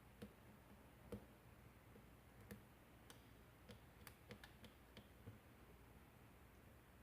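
Faint, irregular light clicks of a lock pick working the pins inside a Kwikset-keyway pin-tumbler lock cylinder, about a dozen scattered ticks bunched toward the middle.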